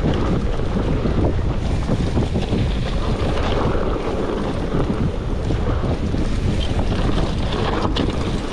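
Wind buffeting the camera microphone as a mountain bike rides fast down a dry dirt trail, with a steady rumble of tyres over loose dirt and light rattles from the bike.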